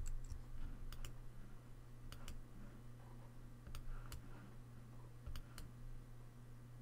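Faint, scattered clicks of a computer mouse, several in quick pairs a fraction of a second apart, over a low steady hum.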